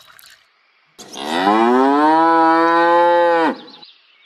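A cow mooing: one long moo of about two and a half seconds that rises in pitch at the start and then holds steady. Before it, water trickling into a small bowl tails off in the first half-second.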